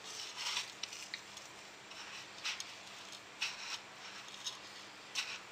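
Dry breadcrumbs and sesame seeds rustling and crunching in a plate as fingers press them onto a piece of egg-dipped fish, in several short scratchy bursts.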